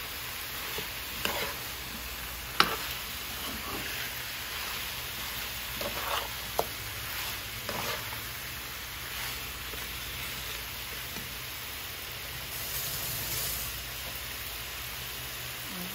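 Chicken pieces and potatoes sizzling as they sauté in oil and tomato paste in a nonstick frying pan. A metal spoon stirring them clinks and scrapes against the pan now and then, the sharpest clink about two and a half seconds in.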